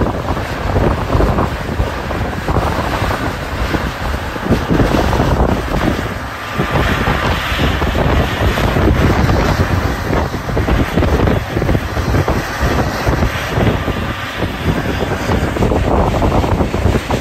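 Strong wind buffeting the microphone throughout, with the low running of a Mount Washington Cog Railway diesel locomotive moving off along the track with its passenger coach.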